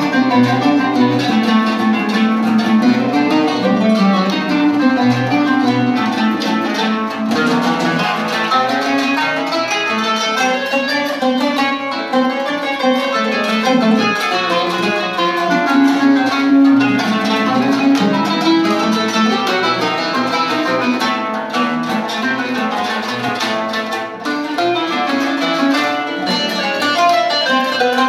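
Kanun and oud playing a duet, a steady stream of quick plucked notes on both instruments.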